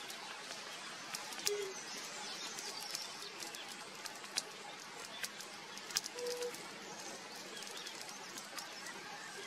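Forest ambience with a steady hiss, a couple of short low whistled bird notes and faint high chirps. A few sharp clicks stand out, the loudest about six seconds in.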